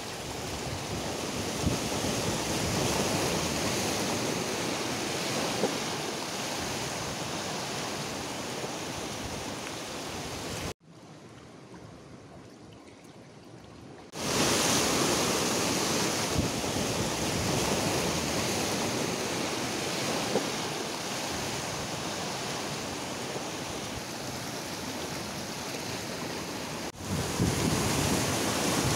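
Sea surf washing over and breaking against shore rocks, a steady rushing noise. It drops suddenly to a quieter wash for about three seconds a little past a third of the way in, then comes back louder.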